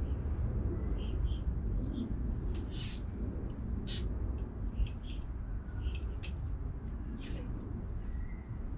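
Small birds chirping repeatedly over a steady low rumble. Two short rasps, about three and four seconds in, fit a nylon zip tie being pulled tight around a bike cable.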